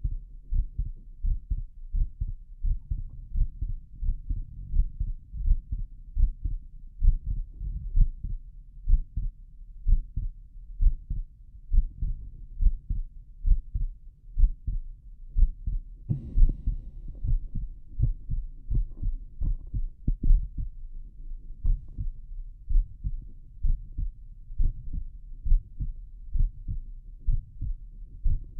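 A human heartbeat heard through a stethoscope: steady, deep two-part lub-dub beats at about one a second. A brief rustle about sixteen seconds in.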